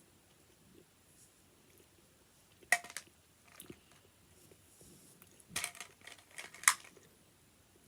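Quiet chewing of a chocolate sweet, broken by a handful of sharp clicks and crackles, the loudest near the end.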